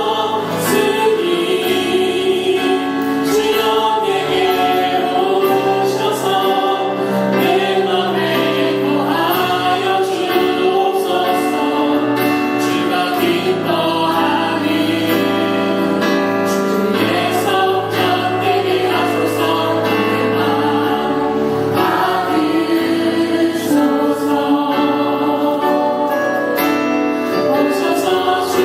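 A choir singing a slow Christian choral piece in sustained, overlapping chords over a held bass line.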